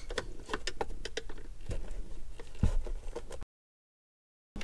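Scattered small clicks, taps and rattles of hands working plastic wiring connectors loose from a car's rear body control module. About three and a half seconds in the sound cuts to dead silence.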